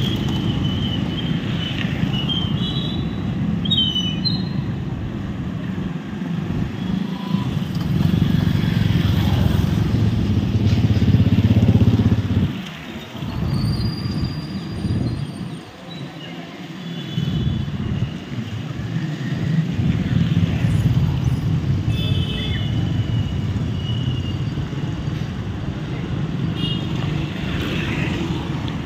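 Road traffic with motorcycles and scooters passing, engines running. It swells as a vehicle passes close a little before the middle, then drops away briefly twice, with a few short high tones scattered through.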